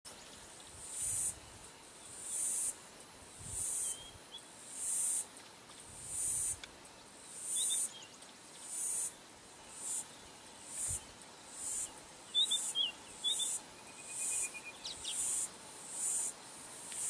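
An insect calling in regular high-pitched pulses, about one every second and a quarter, with a few short bird chirps scattered through the middle and end.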